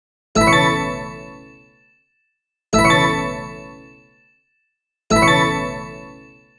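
Interface popup notification sound effect played three times: each a bright, chime-like ding with a sudden start that rings and fades over about a second and a half, repeated every two and a half seconds or so.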